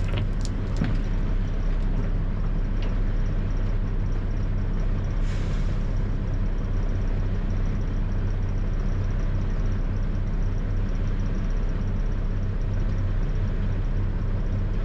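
Tri-axle dump truck's diesel engine idling steadily, a low even drone, with a brief hiss about five seconds in.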